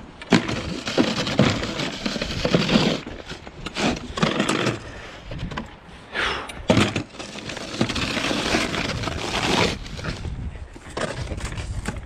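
Snowcaster wheeled snow pusher's blade scraping snow and ice along a concrete driveway in a series of pushes, with sharp knocks as it catches and is lifted.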